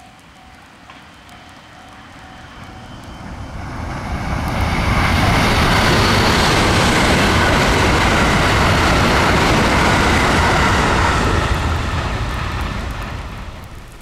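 A JR West limited-express electric train passing at speed: a rushing rumble of wheels on rails that builds from about two seconds in, stays loud for about six seconds, then fades away. In the first few seconds a level-crossing warning bell dings about twice a second before the train drowns it out.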